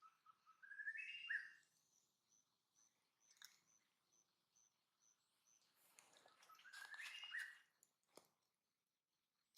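Baby monkey giving faint high squeaky calls twice, each a short run of notes stepping up in pitch, about half a second in and again around seven seconds in. Between them a faint high pip repeats about twice a second, with a couple of soft clicks.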